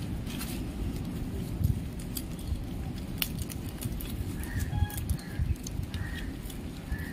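Dried coconut-palm frond leaflets rustling and crackling as they are bent and pulled by hand to tie a knot in the woven edge, with scattered short crisp clicks. A few short, faint bird calls come in during the second half.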